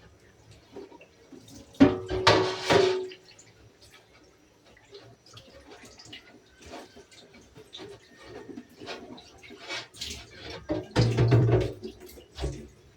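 Water splashing in a sink, with knocks and clatter of items being handled. It comes in two louder spells, about two seconds in and again near eleven seconds, and the first has a brief ringing knock.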